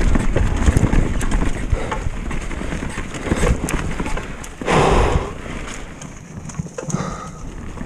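Retro downhill mountain bike rattling down a leaf-covered dirt trail: tyres rolling over leaves and roots with frequent sharp knocks and clatter from the bike over bumps, and a louder burst about five seconds in.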